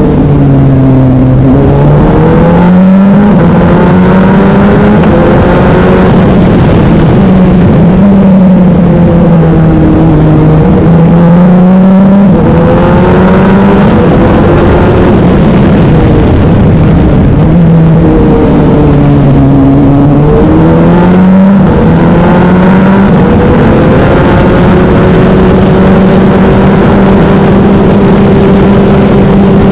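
Wolf GB08 race car engine at racing speed, loud throughout. Its pitch falls several times and climbs back, slowing and accelerating through corners, then holds steady near the end.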